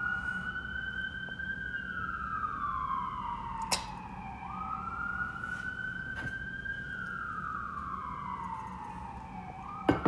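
Emergency vehicle siren wailing in slow cycles, rising quickly and falling slowly about every five seconds, over a steady low hum. Two short sharp knocks, one near the middle and one at the end.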